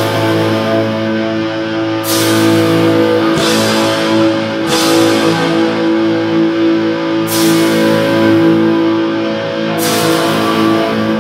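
Black metal band playing live: slow, droning electric guitar and keyboard chords held under a cymbal crash about every two and a half seconds, four times.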